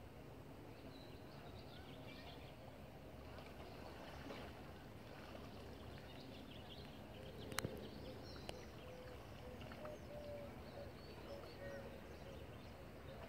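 Faint outdoor ambience: a low rumble with scattered short chirps of small birds. Two sharp clicks about a second apart, a little past the middle.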